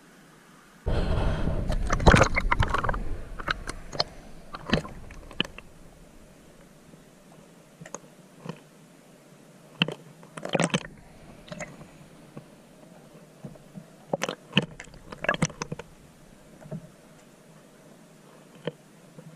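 A sudden burst of water rushing and splashing close to the microphone, as from a kayak's paddle strokes beside a camera held near the water surface. After it come scattered sharp clicks and knocks.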